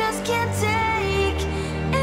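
Background music: an electronic song with a gliding melody line over sustained low notes.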